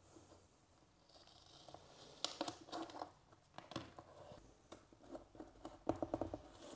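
Sheet vinyl lino flooring being handled and pushed into place: scattered crinkles and scrapes, busiest about two seconds in and again near the end.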